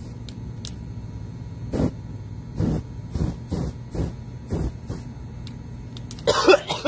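Aerosol can spray hissing through a lighter flame in short bursts, used as a makeshift torch on burning sneakers, with a louder burst near the end over a steady low hum.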